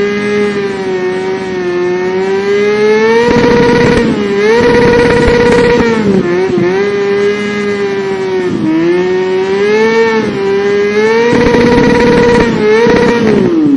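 Loud, buzzy, motor-like hum that wavers up and down in pitch, with rough, gritty stretches. Near the end it begins to slide steeply down in pitch as it powers down.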